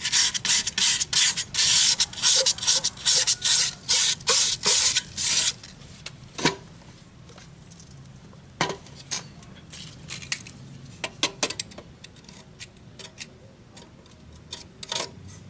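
Worn sandpaper rubbed back and forth in quick strokes over the metal heating plate of a rice cooker for about five seconds. It is scouring off burnt-on dirt that keeps the inner pot from sitting flush on the plate, so the heat does not reach the whole pot. Afterwards come a few scattered light knocks and clicks as the cooker body is handled.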